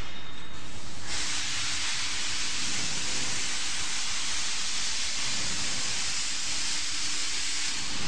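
A loud, steady hiss that starts suddenly about a second in and stops near the end.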